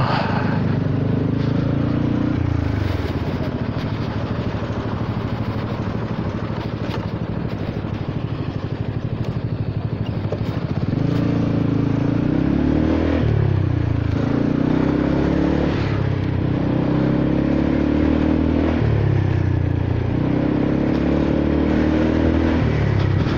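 Honda Forza 300 scooter's single-cylinder engine and exhaust heard while riding. The engine note falls and settles low and steady for several seconds. From about halfway on, the throttle is opened and closed about five times in a row, the pitch climbing with each opening and dropping sharply when it is shut.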